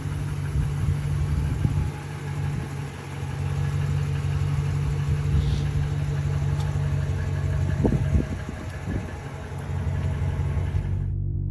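Vehicle engine idling steadily, with a few brief knocks about eight seconds in. Music takes over near the end.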